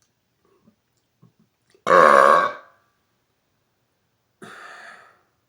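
A man's loud, deep burp about two seconds in, lasting under a second, followed a couple of seconds later by a shorter, much quieter sound.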